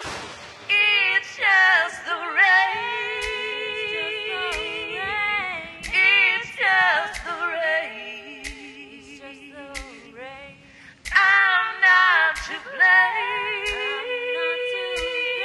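Music: layered female voices singing sustained harmonies, a cappella in style, over a soft steady beat; the singing thins out briefly in the middle before the full harmonies return.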